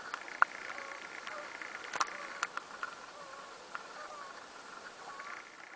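Faint wavering animal calls over a low outdoor hiss, with a few sharp clicks scattered through.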